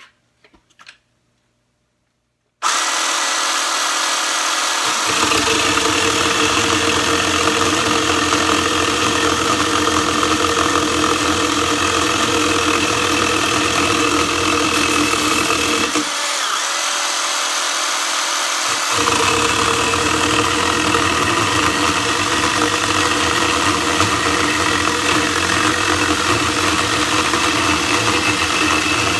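Kimo 20V cordless pole chainsaw with an 8-inch bar starting up about two and a half seconds in and running steadily as its chain cuts through a 4x4 piece of lumber. The deepest part of its sound comes in a couple of seconds later and drops out briefly for a few seconds past the middle.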